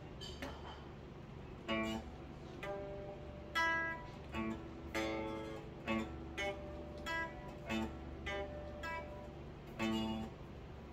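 Gretsch electric guitar played with a pick, a run of single notes and short chords struck every half second or so, each ringing briefly and fading. A steady low hum sits underneath.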